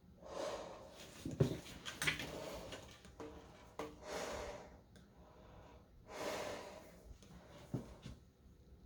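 A person breathing heavily close to the microphone, a breath every two seconds or so, with a few light clicks and knocks in between.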